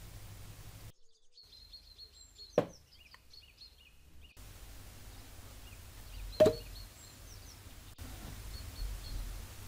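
Two sharp knocks about four seconds apart, the second the louder with a brief ring, from containers being handled and set down on a wooden table. Faint bird chirps sound in the background.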